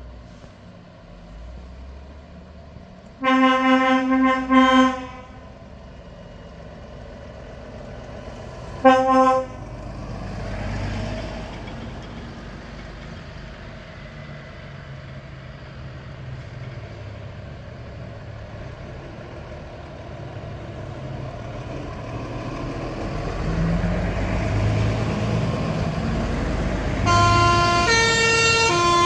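Truck air horn sounding a steady blast about three seconds in, then a short toot near nine seconds. Truck engine noise follows and grows louder, and near the end a multi-tone musical horn plays a quick stepping tune.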